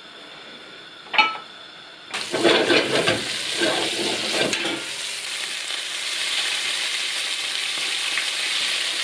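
Floured beef chunks frying in hot beef dripping in a frying pan: a steady sizzle starts suddenly about two seconds in, with a spatula stirring and scraping the pieces over its first few seconds. A single light knock comes about a second in, before the sizzle.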